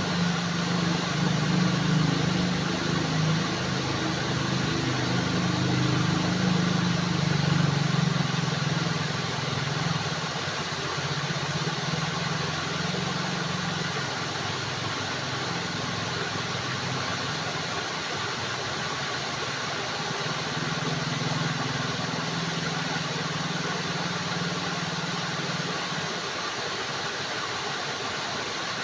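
Steady rushing of flowing water, with a low engine-like hum underneath that fades out a few seconds before the end.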